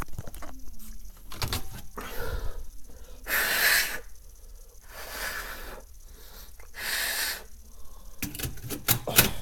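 Two short hissing sprays from an aerosol can of Smoke Sabre test smoke, one about a third of the way in and another about three-quarters through. Near the end come several sharp clicks of handling. No alarm sounds.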